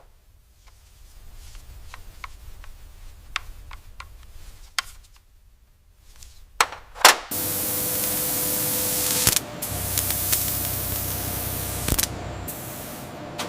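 Scattered light clicks and taps, then about seven seconds in a loud, steady hiss starts suddenly with a faint hum under it. The hiss eases somewhat about two seconds later and keeps going.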